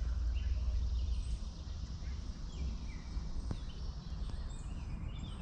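Quiet outdoor ambience: a steady low rumble and faint hiss, with a few faint bird chirps and one small click about three and a half seconds in.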